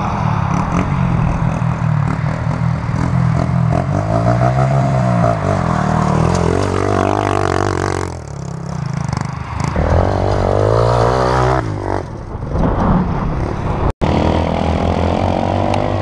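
Dirt bike engine revving up and falling back again and again under the throttle, with a short lull about eight seconds in and a momentary dropout near the end.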